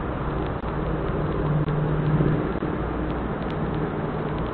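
Motor vehicle engine running with a steady low hum that swells to its loudest about two seconds in, heard through a security camera's narrow-band microphone.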